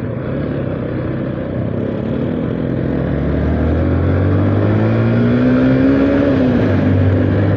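Motorcycle engine pulling under way, its pitch rising slowly as it gathers speed, with wind rushing over the microphone.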